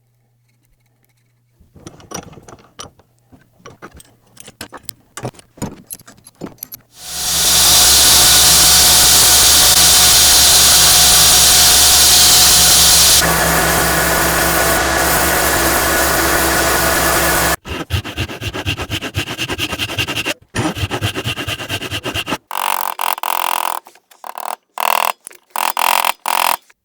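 Workshop power tool with a steady motor hum under a loud hiss. A few seconds of light clicks and taps come first, then about ten seconds of continuous running that shifts in tone partway through, then short, choppy bursts that stop and start.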